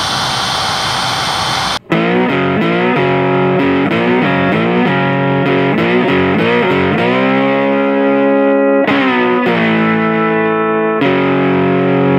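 A power drill boring into an aluminium housing runs steadily for about two seconds and cuts off abruptly. Then distorted electric guitar music follows, with sliding notes.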